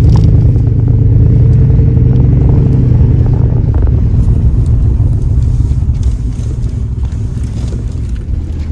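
A car's engine and road noise heard from inside the cabin as it drives, a steady low rumble that comes up loudly at the start and eases off over the last few seconds.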